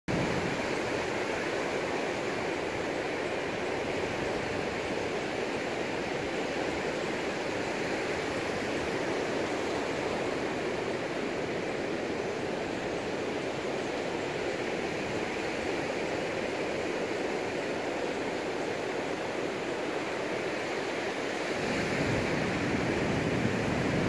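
Small waves breaking and washing up a sandy beach: a steady rushing hiss of surf, swelling louder with a low rumble about 22 seconds in.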